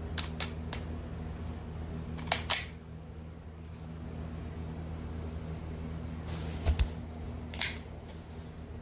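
Crosman SNR357 CO2 pellet revolver's action being worked by hand: a few light clicks, a louder double click about two seconds in, then more sharp clicks with a dull thump between six and eight seconds in.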